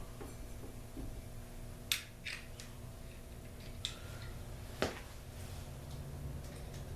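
A few sharp clicks and taps of a hand tool and small screws being worked on a garage door opener's metal cover, the loudest about two seconds in and about five seconds in, over a faint steady hum.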